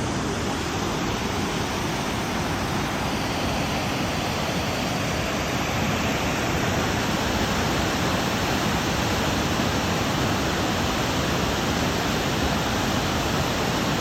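Waterfall pouring: a steady, dense rush of falling water.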